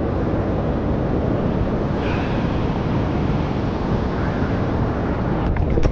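Steady rushing noise of river water mixed with wind on the microphone, with a few short clicks near the end.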